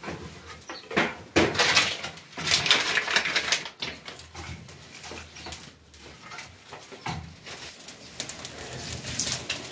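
Dry twigs and sticks rustling, snapping and crackling as a wood fire is kindled and fanned in a clay (mud) stove, with uneven rushes of noise and short sharp crackles.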